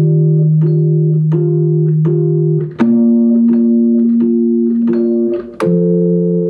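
Rhodes electric piano playing a slow, mellow progression: a held bass note under chords struck about every three-quarters of a second, with the harmony changing twice.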